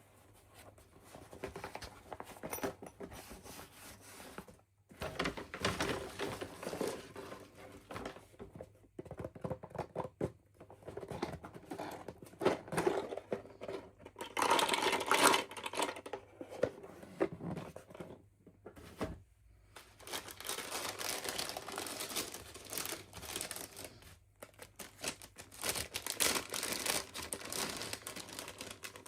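Doll packaging being unwrapped by hand: plastic and paper crinkling and tearing in irregular bursts with brief pauses, loudest a little past the middle.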